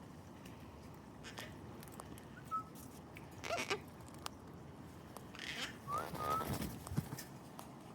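Soft gang-gang cockatoo sounds: two short whistled notes, about two and a half and six seconds in, with brief scratchy, raspy noises around them.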